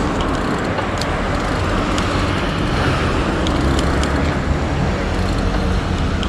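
Street traffic noise: a steady rumble of passing road vehicles, with a few faint clicks.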